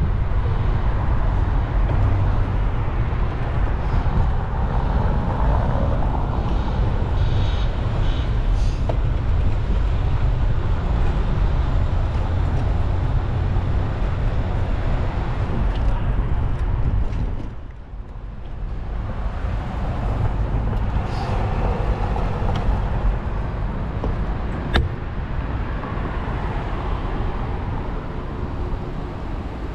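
Steady rumble of car traffic on a city street, dipping briefly just past halfway, with one sharp click about three-quarters of the way through.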